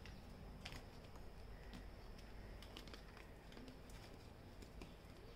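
Near silence, with faint scattered clicks and taps of tarot cards being picked up and handled.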